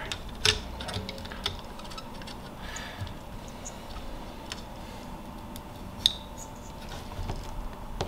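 Scattered small clicks and taps of hands fitting a freshly soldered ESC board onto the standoffs of a carbon-fibre drone frame, the sharpest click about six seconds in.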